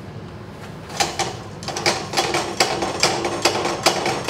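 Small metal parts clinking and rattling in a quick run of sharp clicks, starting about a second in and lasting about three seconds: a collet and number 38 drill bit being handled at a milling machine spindle.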